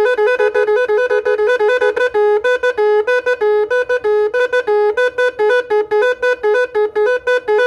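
Electronic multi-tone 'Magic Horn' snail horn playing a tune: one buzzy tone flicking rapidly between two notes, with a stretch of longer low notes and short gaps in the middle. The horn is covered to damp its volume.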